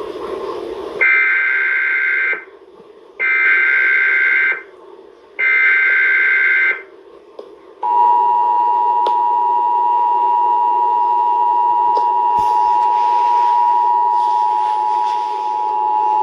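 Emergency Alert System monthly test tones: three short bursts of SAME digital header data, each about a second and a half long with short gaps between, then the steady two-tone EAS attention signal held for about eight seconds. A steady low background noise runs underneath.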